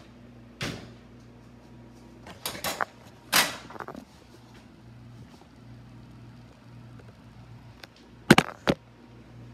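Knocks and clanks of a metal baking tray being slid off a wall oven's rack, with the oven door shutting with a bang about three and a half seconds in. A short pair of sharp clanks near the end as the tray is handled again.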